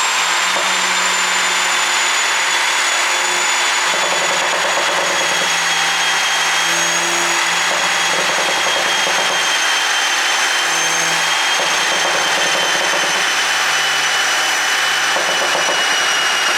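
BMW Z4 sDrive20i under way: a steady, loud rushing noise with a thin high whine that slowly falls in pitch and a low hum underneath.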